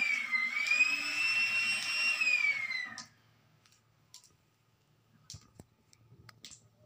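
Power drill motor whining at a high pitch, dipping briefly as if under load, then winding down and stopping about three seconds in. Faint scattered clicks follow.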